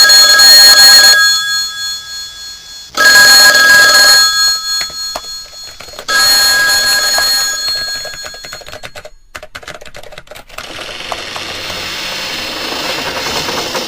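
Office telephone ringing: three rings of about a second each, some three seconds apart. Then a run of quick clicks like keyboard typing, and a steady office background hiss over the last few seconds.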